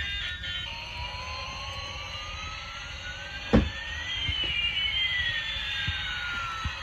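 Battery-operated toy A380 airliner's electronic jet sound effect: a hissing whoosh with a whistle that climbs slowly in pitch, joined about four seconds in by a second whistle falling in pitch, over a low rumble as the toy runs along the floor. One sharp knock about three and a half seconds in.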